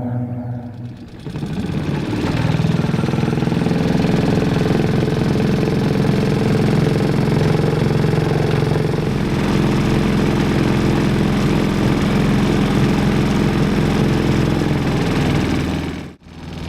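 Engine running steadily under way, starting up in level about a second and a half in. The sound drops out abruptly for a moment near the end.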